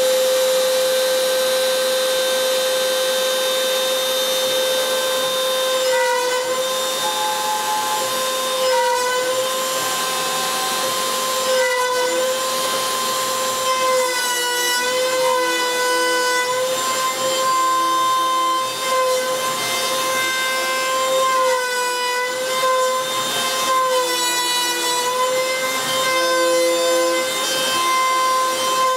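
Homemade CNC router's spindle running with a steady high whine that sags briefly in pitch every few seconds as the bit V-carves into wood. Shorter whirring tones come and go from the stepper motors driving the axes.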